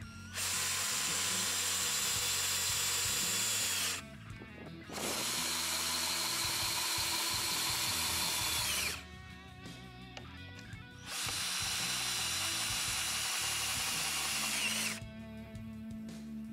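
Cordless drill with a socket bit tightening bolts into a steel bracket, running in three spells of about four seconds each with short pauses between, its whine dropping away as the trigger is released each time.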